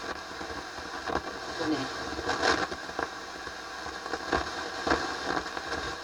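Harman Kardon 730 receiver's FM tuner being tuned through its speakers: hiss between stations with irregular crackles and brief fragments of broadcast audio. The crunching as it is tuned is the sign of a dirty tuning capacitor.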